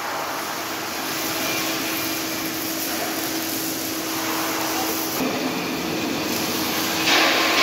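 Steady hiss and crackle of MIG welding on a steel frame, with a faint machine hum under it. The hum changes about five seconds in, and the hiss grows louder near the end.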